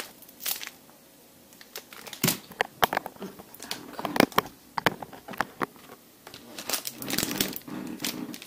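Thin plastic snack wrapper crinkling and crackling on and off as a wrapped curd stick is handled and unwrapped by hand, with quiet pauses about a second in and again near six seconds.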